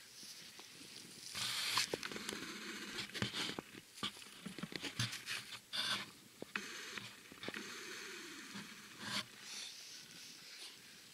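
Rustling and scratching close to the microphone, in irregular bursts with sharp clicks, from hands and clothing working the camera.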